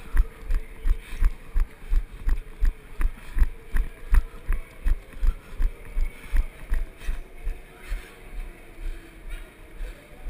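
A person running: heavy, evenly spaced footfall thuds, about three a second.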